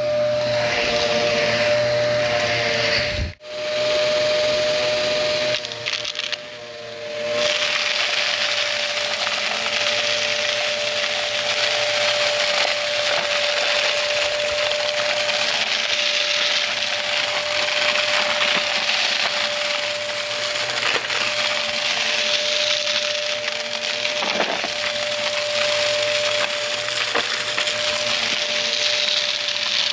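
Vacuum cleaner running with a steady motor whine while sucking up crunchy debris that crackles and rattles through it. The sound cuts out for an instant about three seconds in and is quieter for a second around six seconds in, then the crackling picks up and runs steadily.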